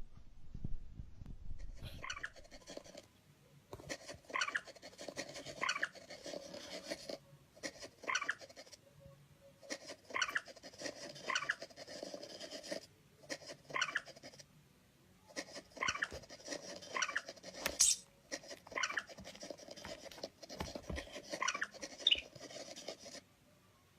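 A cat mewing over and over, short high calls about one a second, in runs with brief pauses between them.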